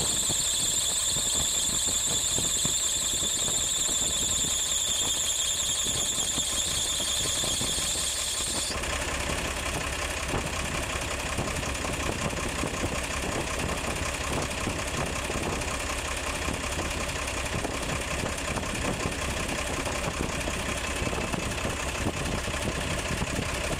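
Diesel engine of a HOWO 380 truck idling, with a steady high-pitched squeal over it that cuts off abruptly about nine seconds in, after which only the engine's running is heard.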